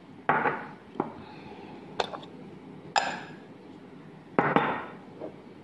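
Glass jars and dishes being handled on a tabletop: a series of knocks and clinks, roughly one a second, the one about three seconds in ringing glassy.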